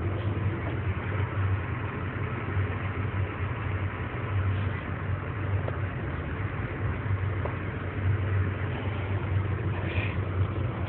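An engine running steadily, with a constant low hum under an even wash of noise.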